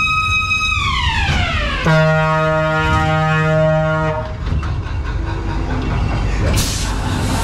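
Ghost train car rumbling along its track under a loud sound effect: a high steady tone that slides down in pitch, then a low buzzing tone for about two seconds. A short burst of hiss comes near the end.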